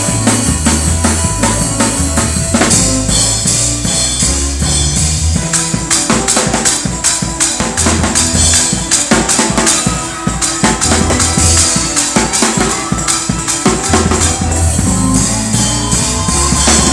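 Gospel praise-break music: a drum kit played hard and fast, with dense snare and bass-drum strokes and steady cymbal crashes, over a low bass line that moves in stepped notes.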